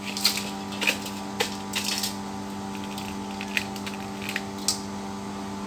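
Hands rubbing and scraping Chinese onion (kiệu) bulbs in a metal bowl, giving short rustling scrapes that come thickest in the first two seconds and then now and then, over a steady low hum.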